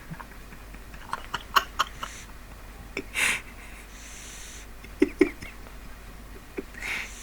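A sleeping pug snoring: a loud noisy breath about three seconds in and another near the end, with short sharp clicks and smaller breath sounds in between.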